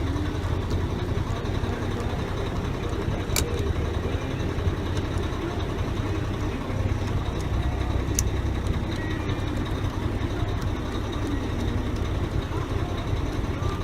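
Heavy truck's diesel engine idling steadily, with two short sharp clicks a few seconds apart.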